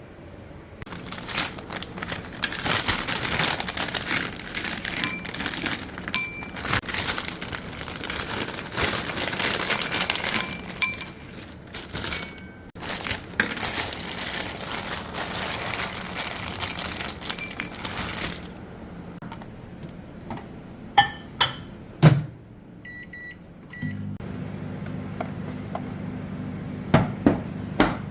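A long, even hiss with clinks and knocks that stops abruptly, then a few clicks and short beeps as a microwave oven is set, and the microwave starting to hum steadily near the end.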